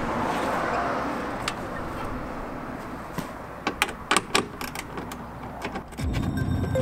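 Car boot lid opened, then sharp, irregular clicks and knocks of handling tools and parts inside the boot, with steady traffic noise in the background. Music comes in near the end.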